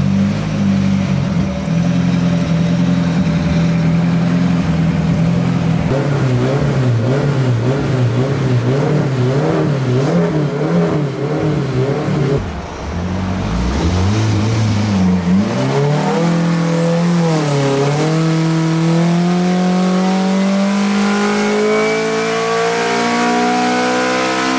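Turbocharged Honda K24A2 four-cylinder race engine running under load on a hub dyno. It holds at a steady speed with small wavering for about twelve seconds, dips and blips, then from about eighteen seconds climbs steadily in revs in a dyno pull. A thin high whistle runs with it through the pull.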